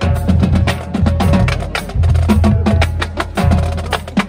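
Marching band drumline of snare drums, tenor drums and pitched bass drums playing a cadence: a fast, loud, even rhythm of sharp strokes.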